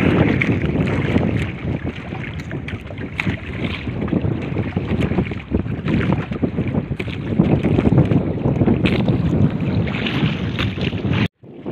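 Wind buffeting the microphone over the wash of sea waves against a small wooden outrigger boat, with scattered light knocks. The sound cuts out abruptly for a moment near the end.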